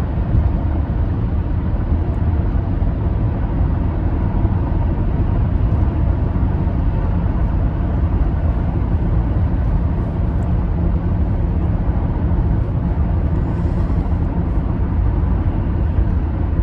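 Steady low rumbling noise, even and unbroken, strongest in the deep bass.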